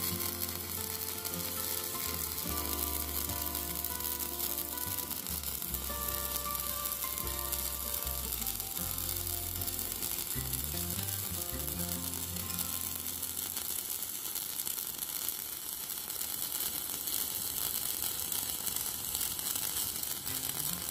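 Stick-welding arc from a Poney MMA 200E mini inverter welder, crackling and sizzling steadily as a 2.5 mm electrode is burned on thick steel.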